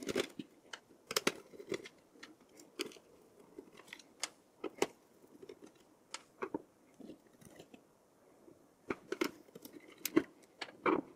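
Screwdriver clicking and scraping in the motherboard screws and tapping against the metal chassis of a Dell OptiPlex 7060 Micro as the board is unscrewed: irregular small clicks, with a lull about two-thirds through.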